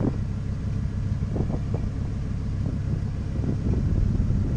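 Engine idling with a steady low rumble, mixed with wind buffeting the microphone.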